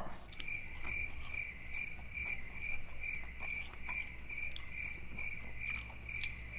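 Cricket chirping steadily, one clear pitched chirp about twice a second at an even pace.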